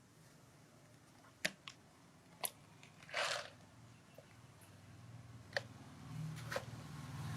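A baby monkey biting and crunching ice. Sharp cracks come one at a time, with one short crunch near the middle. A low hum rises in near the end.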